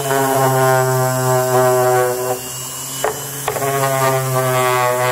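Electric random orbital sander running against a small wooden box, a steady buzzing hum, on a final smoothing pass with fine-grit paper. About halfway through it eases off for about a second, with a couple of knocks, then bears down again.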